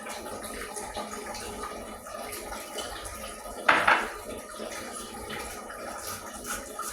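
Kitchen cooking sounds: a steady watery hiss with light clinks of utensils, and one louder clatter about four seconds in.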